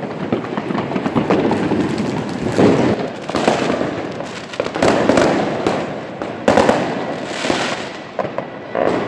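Fireworks and firecrackers going off at street level: a dense barrage of bangs and crackling, with the heaviest bangs about two and a half, five, six and a half and seven and a half seconds in.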